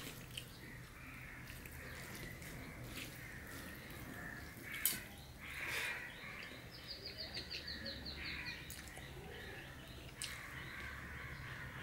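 Eating by hand from a steel plate: fingers mixing rice and curry, and chewing, with a sharp click about five seconds in. Crows caw a few times in the background.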